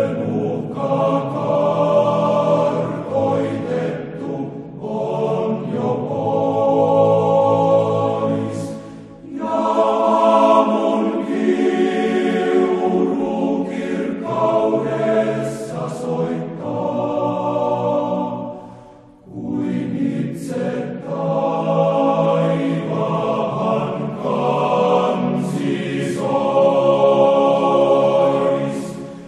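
Choral music: massed voices singing long, sustained chords in slow phrases, with brief pauses between phrases about nine and nineteen seconds in.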